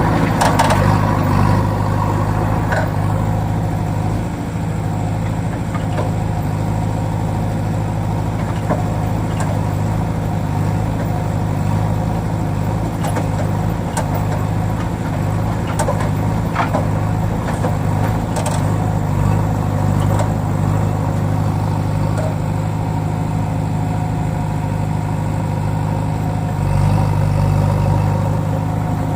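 Diesel engine of a JCB machine running steadily, with a few short knocks; it grows louder for a moment near the end.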